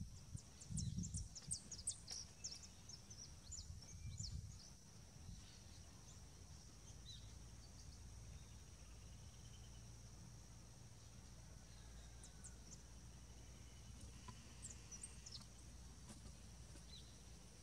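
Faint outdoor ambience with small birds giving quick, thin high chirps. The chirps come in a busy cluster in the first few seconds and a few more later, over a steady faint high insect whine. A few low rumbles sound near the start.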